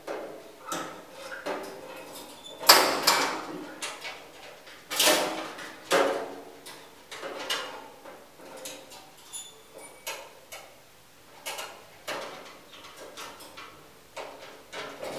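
Chrome wire warming rack clanking and rattling against a gas barbecue's metal hood and body as it is slipped into place. The knocks come irregularly, the loudest about three and five seconds in.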